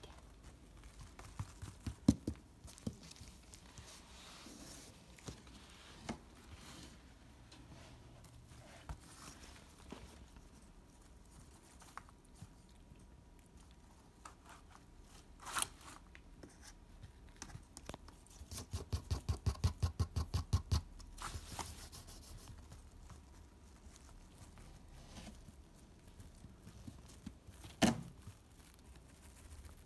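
Pomeranian puppy moving about on an artificial-grass mat: faint taps and scrapes of small paws and claws, with a quick run of about a dozen thumps over two seconds a little past the middle and a few sharp clicks.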